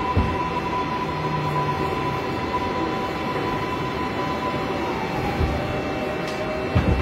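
New York City subway car standing at a station: a steady hum from its ventilation and electrical equipment with a high whine that dips and fades about five seconds in. A few dull low thumps come near the start and toward the end.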